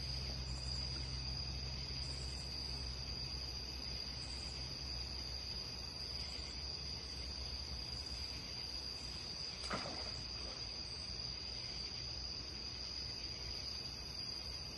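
Insects, crickets or similar, trilling in a steady high-pitched chorus, over a low steady hum, with one brief faint sound about ten seconds in.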